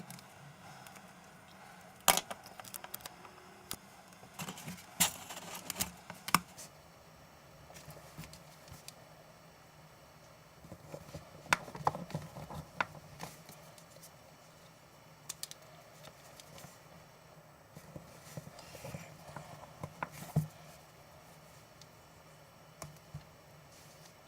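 Irregular clicks and taps of small plastic and metal laptop parts and tools being handled, over a faint steady hum.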